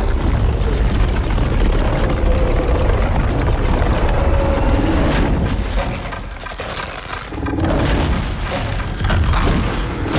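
Film sound effects of an earthquake splitting the ground: a deep continuous rumble with booms and cracking, easing briefly about six seconds in before building again. A film score plays underneath.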